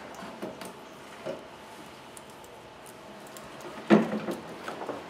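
A few light clicks, then one loud clunk about four seconds in, followed by smaller knocks, as a truck alternator is laid back into its mounting brackets.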